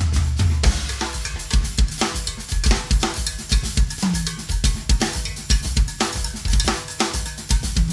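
Two Sonor drum kits played together in a driving groove, with kick, snare and rim strokes in a quick steady rhythm, over a held low bass line that shifts pitch.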